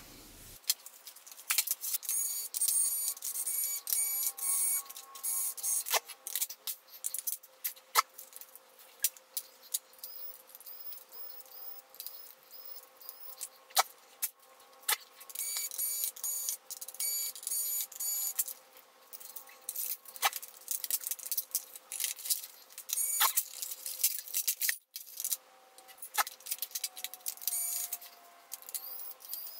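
Timelapse sound of a laptop being taken apart by hand: quick clicks and clatter of plastic and metal parts and screws, with clusters of high-pitched chirping squeaks.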